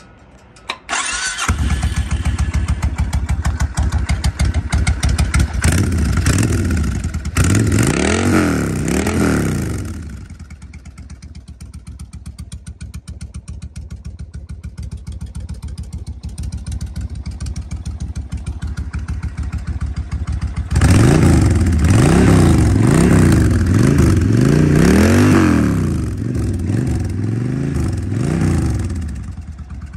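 Suzuki Intruder VS 1400's V-twin engine with a loud custom exhaust starting about a second in, then idling with a deep, uneven beat. It is revved up and down in a few blips, settles back to idle, and is revved again in a longer series of blips near the end.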